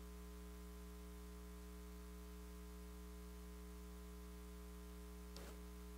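Faint, steady electrical mains hum in the sound system, otherwise near silence, with a faint brief sound near the end.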